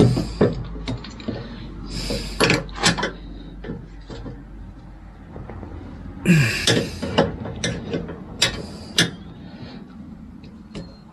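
Metal tools and parts clinking, clicking and knocking irregularly during hands-on work on a mower's wiring, with a couple of louder rattling clatters.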